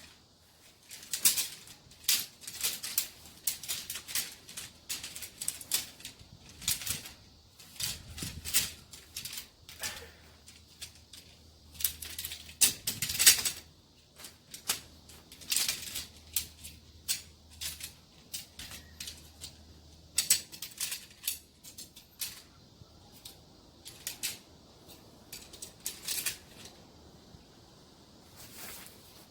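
Handling noise: irregular sharp clicks and rustles, several a second in places, of gear being worked by hand.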